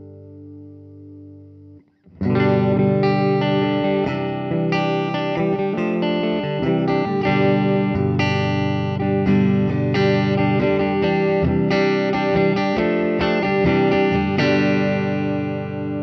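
2010 Gibson SG Standard electric guitar fitted with a Halon phosphor bronze tailpiece, played clean through a Fender Super Champ amplifier: a run of quickly changing picked and strummed chords, ending on a chord left ringing. It opens with a chord from the steel-tailpiece take ringing out, cut off sharply about two seconds in.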